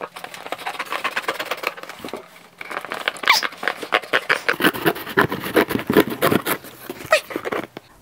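Scissors cutting through a cardboard box: a fast run of snips and cardboard scraping, with a short pause about two seconds in.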